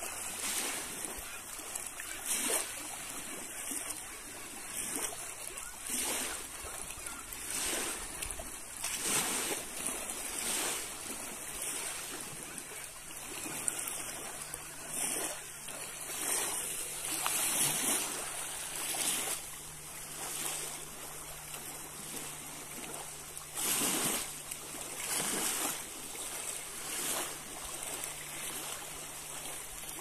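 Small waves lapping and splashing at a stony shoreline, each wash swelling and fading every second or two over a steady rush of water.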